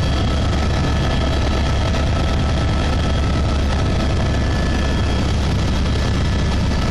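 Helicopter in flight heard from inside the cabin: a loud, steady drone of engine and rotor with a heavy low rumble and a few faint, steady whining tones above it.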